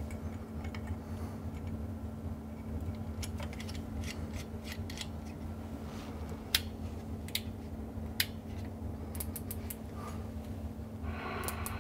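Sharp, scattered clicks of a CB amplifier's front-panel push-button switches being pressed and its cables being handled, over a steady low electrical hum from the bench. About a second before the end, a buzzing sound with rapid, evenly spaced ticks comes in.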